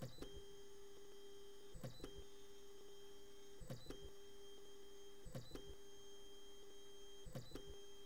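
3D printer stepper motors whining at a steady pitch in moves of about a second and a half, each move ending in a short double click, about every 1.8 seconds.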